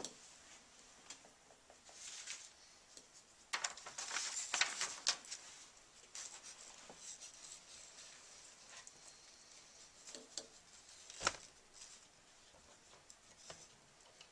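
Faint scratchy dabs of a paintbrush on watercolour paper, with a louder rustle of a paper sheet being handled about 4 seconds in and a single sharp tap just after 11 seconds.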